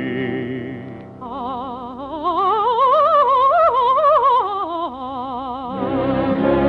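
A woman's operatic soprano voice sings a practice scale with a strong vibrato over held accompanying chords. It starts about a second in, climbs note by note to a high peak and comes back down about five seconds in.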